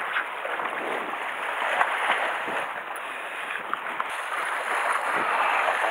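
Sea water washing and splashing against shore rocks: a steady wash with small splashes scattered through it.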